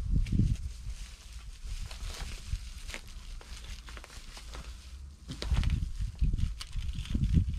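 Reflective foil bubble insulation crinkling and crackling as it is pressed and smoothed by hand onto a van's rear door panel, with bouts of low rumbling just after the start and again from about five seconds in.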